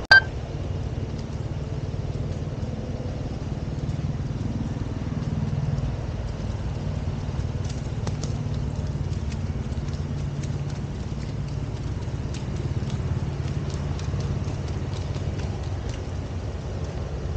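Horse's hooves falling on a wet dirt riding ring as it is ridden, faint ticks over a steady low rumble, with one sharp click right at the start.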